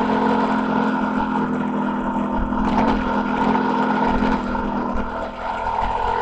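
Yamaha Ténéré 700's parallel-twin engine running steadily while the motorcycle cruises on a dirt road, heard from a camera mounted on the bike, with a low rumble of wind and road noise underneath.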